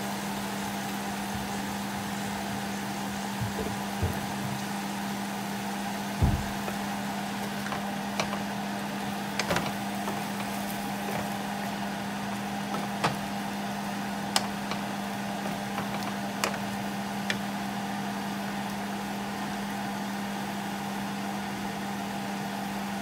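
A steady mechanical hum, with a few short clicks and knocks of a wooden spatula and a plastic ladle against a nonstick pan of chicken wings between about 3 and 17 seconds in. The loudest knock comes about 6 seconds in.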